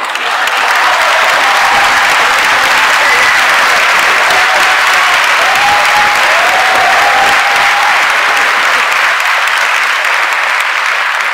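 A large audience applauding steadily, with a few voices calling out over the clapping; it eases off slightly near the end.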